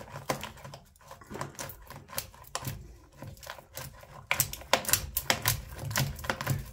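Old disused electrical conduit being pulled and worked loose from a plastered wall and ceiling beam: irregular clicks and cracks from the tubing and its fixings, louder and more frequent in the last couple of seconds.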